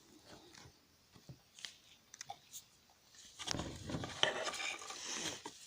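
Smartphone parts being pried and handled during a teardown: a few faint clicks, then past halfway about two seconds of crunching and scraping with sharp clicks.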